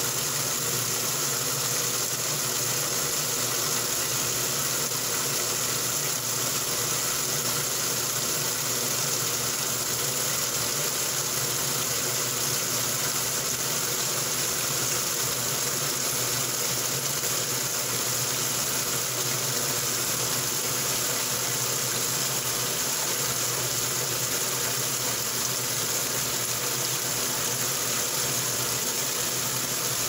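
Old top-loading washing machine running empty, with a stream of water pouring into the tub: the steady rush and splash of falling water over a constant mechanical hum.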